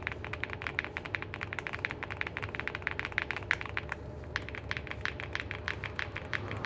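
Mechanical keyboard fitted with Gateron Quinn heavy tactile switches being typed on quickly, a fast run of keystroke clicks several a second, with a brief pause about four seconds in.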